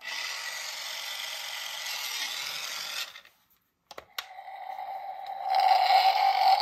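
Mickey Mouse Rev and Go Roadster toy car playing electronic sound effects from its small speaker, set off from the Mickey-head button on its hood: a rushing noise for about three seconds that cuts off, two quick clicks, then a steady tone that grows louder about five seconds in.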